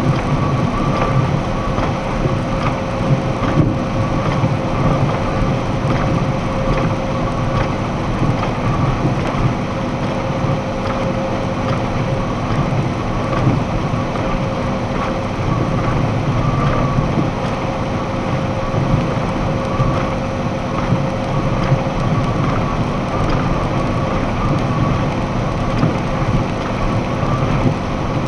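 Box truck cruising at about 68 mph on wet pavement, heard from inside the cab: a steady rumble of engine and road noise with the hiss of tyres on the wet road.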